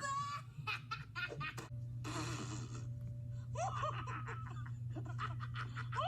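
A group of people laughing at a joke, in short bursts of giggles and chuckles, over a steady low hum.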